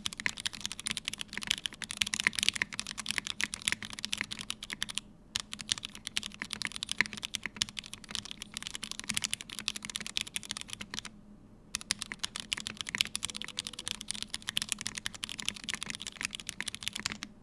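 Fast continuous typing on a mechanical keyboard with lubed and filmed Hyperglide Black linear switches in a brass plate and CRP keycaps, dense key strokes with two short pauses, around five seconds in and eleven seconds in.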